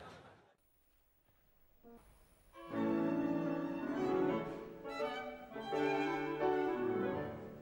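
Audience noise dies away to near silence, then about two and a half seconds in a live violin begins playing a classical-style piece with piano accompaniment.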